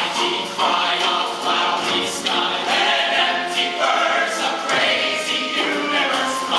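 A show choir singing a song in full voice.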